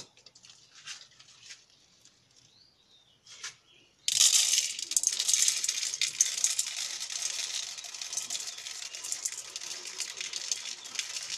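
A few faint clicks, then about four seconds in a sudden loud sizzling and crackling starts in a hot cooking pot as food goes into it, and keeps up steadily.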